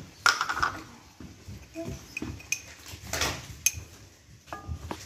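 Kitchen clatter: a series of clinks and knocks from utensils and cookware, the loudest near the start and about three seconds in.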